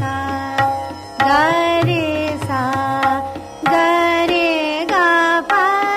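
A vocal swarmalika (sargam composition) in Raag Hansdhwani: the note names are sung in a medium-tempo sixteen-beat teentaal, with tabla accompaniment. The notes are held, with gliding moves between pitches, and use the raga's five notes, leaving out ma and dha.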